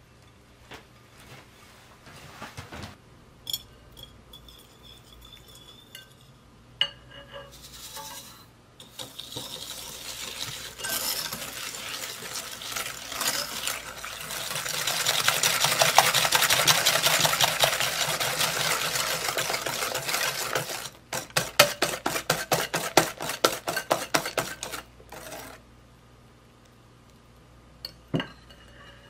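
Wire whisk beating egg yolks and granulated sugar by hand in a glass bowl: a fast, steady scraping rattle of the wires against the glass. Near the end it breaks into separate strokes, about five a second. First come a few light clinks and taps of glass bowls, one ringing briefly.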